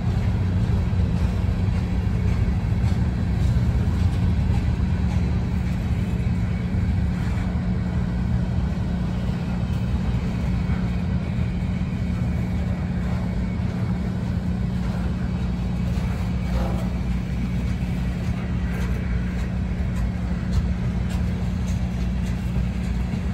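Freight cars rolling past at trackside as a long freight train climbs a grade: a steady low rumble of steel wheels on the rails, with a few faint clicks.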